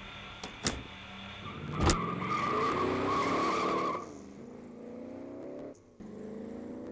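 A car pulls away hard. A thump about two seconds in, then the tyres squeal for a couple of seconds while the engine revs up, drops and revs up again twice as it goes through the gears.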